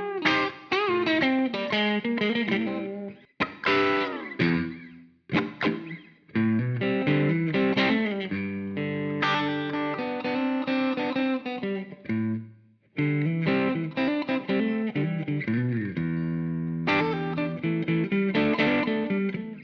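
Donner Hush X travel electric guitar on its middle pickup, played through a Donner Arena 2000 multi-effects unit on its 'Blues Whiskey' patch: blues lead phrases with bent and wavering notes, broken by short pauses between phrases.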